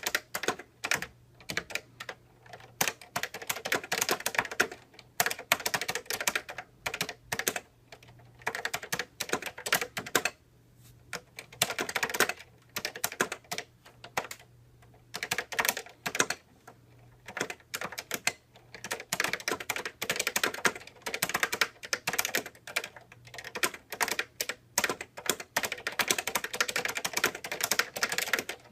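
Typing on a 1983 Epson QX-10 keyboard with Fujitsu second-generation leaf-spring linear switches, each keystroke's bottom-out dampened by hard rubber stoppers. Fast runs of key clacks broken by short pauses.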